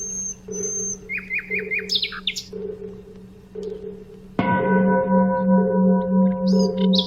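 Small birds chirping and whistling over a low steady hum, then a large Buddhist temple bell struck once a little past halfway. It rings on in several held tones with a slow pulsing throb underneath.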